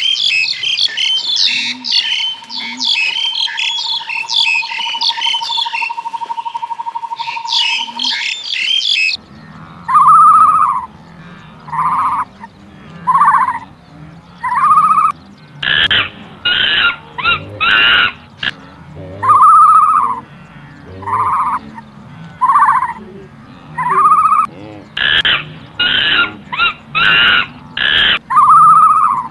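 Dense, rapid bird chirping with a steady whistle-like tone beneath it. About nine seconds in it changes abruptly to a different animal call, short arched notes repeating about once a second, broken by two runs of louder, harsher calls.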